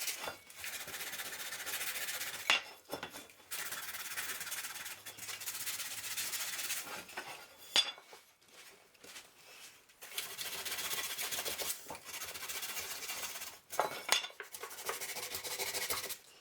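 Hand scuffing a part with abrasive in several stretches of fast back-and-forth rubbing, with short pauses and a few sharp taps between them. The surface is being roughened so double-sided carpet tape will grip.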